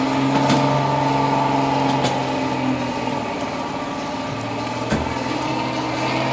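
Six-wheeled off-road trial truck's engine running steadily under load as it crawls up a steep slope of loose rock. It eases off a little past the middle and then pulls again, with a single sharp knock about five seconds in.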